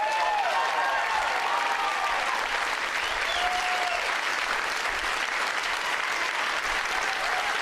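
Audience applauding steadily, with a few short cheers near the start.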